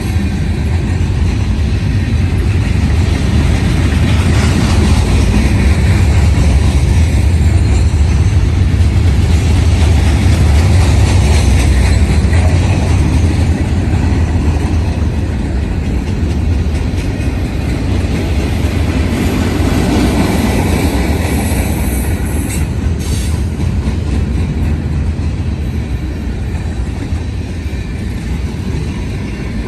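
Manifest freight train rolling past: a steady, loud rumble of steel wheels on rail. It is loudest in the first half and eases slightly toward the end.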